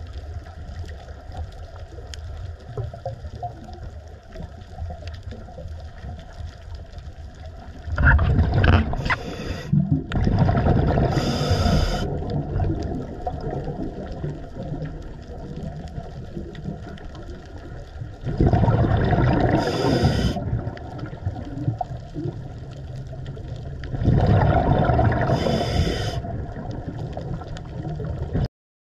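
Scuba diver's regulator exhalations heard underwater: three long bursts of bubbling, several seconds apart, over a low steady underwater rumble. The sound cuts off just before the end.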